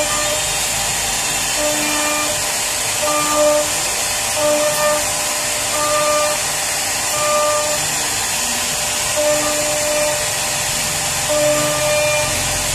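CNC router spindle carving a relief pattern into a wooden panel: a steady high whine over a loud cutting hiss, with short pitched hums recurring every second or so as the machine works along the cut.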